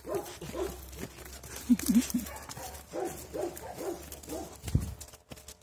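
Puppy whining and yipping in a string of short, arching calls, with three lower calls about two seconds in. A single thump sounds near the end.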